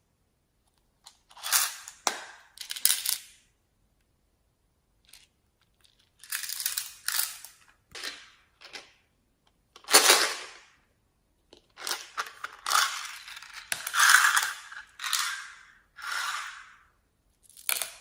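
Slime being squeezed and pressed by hand, making a series of short crackling, squelching bursts with silent gaps between them.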